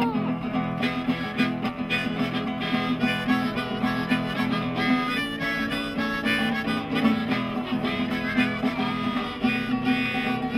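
Harmonica playing a melody over a plucked lute accompaniment, both played by one musician.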